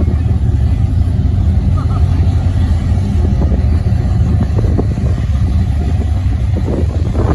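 Big-block engines of a 35-foot Fountain powerboat running at idle speed, a deep steady rumble.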